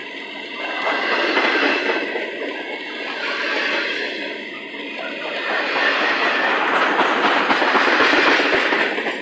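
Double-stack intermodal well cars of a freight train rolling past at speed: steel wheels running over the rails, the noise swelling and easing, loudest over the last few seconds.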